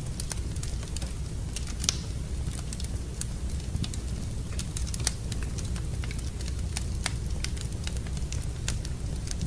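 Wood fire crackling in a fireplace: irregular sharp pops and snaps over a steady low rumble, with two louder pops about two and five seconds in.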